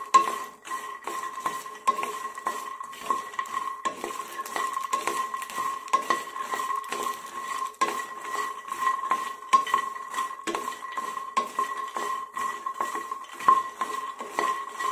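A spatula stirs and scrapes puffed lotus seeds (makhana) and curry leaves around a pan as they fry in a little oil, the seeds rattling and ticking against the pan in a steady fast run of clicks. A steady high hum runs underneath.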